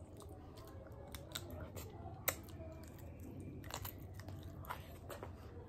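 A man chewing and biting biryani, faint, with scattered small mouth clicks and smacks, the sharpest just over two seconds in.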